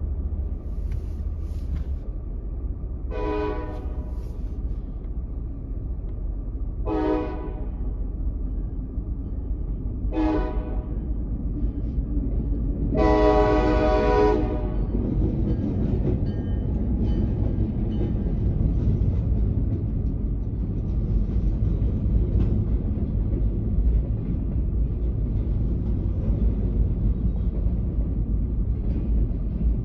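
Freight train locomotive horn sounding four blasts for a grade crossing, the last one the longest, then the locomotive and its flatcars rumbling steadily across the crossing. Heard from inside a car's cabin.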